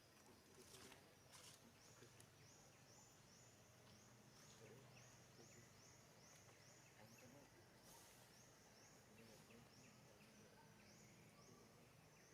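Faint, high-pitched animal chirping, short chirps repeated evenly about twice a second, over a low steady hum.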